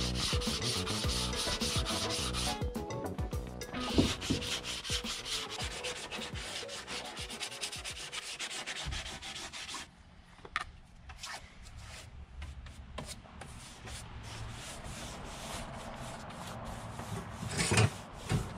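Hand sanding block rubbing over plywood sheathing in quick strokes, knocking down splinters so the surface is smooth for a peel-and-stick membrane. The rubbing is loudest for about the first ten seconds, then quieter, with a sharp knock about four seconds in.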